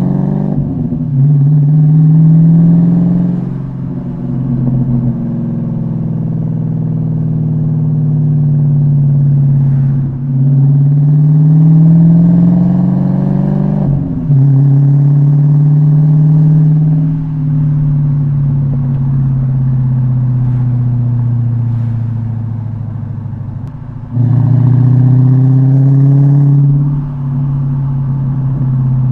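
Dodge Challenger R/T's 5.7-litre Hemi V8 on deceleration through an H-pipe exhaust with Dynomax Race Bullets and the active valves deleted: a loud, deep exhaust note that slides down as the revs fall, with a few brief pops. The note steps up sharply and swells louder about halfway and again near the end before sinking back.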